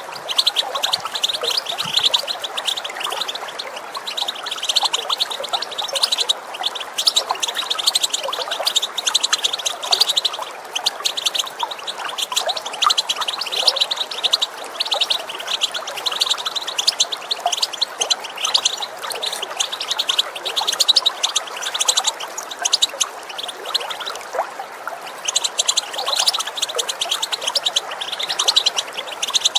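European goldfinch twittering and calling in rapid, continuous chirps, with a brief lull near the end, over the steady sound of running water.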